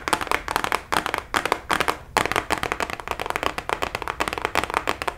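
Fast fingernail tapping on a cardboard product box close to the microphone: rapid, uneven clicks in quick runs broken by short pauses.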